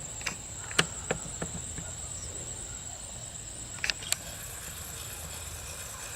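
A few light knocks and clicks, grouped near the start and again about four seconds in, as bows are hung on the bow rack's hangers, over a steady high-pitched insect drone.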